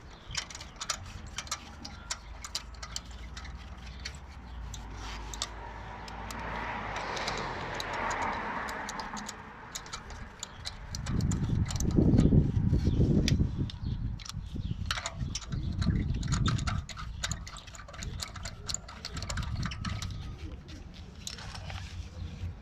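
Ratcheting torque wrench clicking in quick ticks while wheel nuts are tightened to 120 Nm, with a louder, deep rumbling stretch in the middle.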